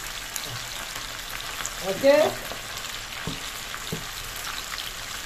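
Netholi (anchovies) deep-frying in hot oil in an iron kadai: a steady sizzle with small crackling pops, and a few sharper spits. A brief louder sound about two seconds in.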